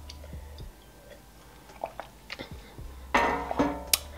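A woman sipping a drink from a mug, with faint small mouth and swallowing sounds. About three seconds in comes a short vocal sound, then a sharp click near the end.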